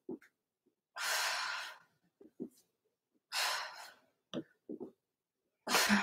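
A person breathing out hard through the mouth with each crunch, three strong exhalations about two and a half seconds apart.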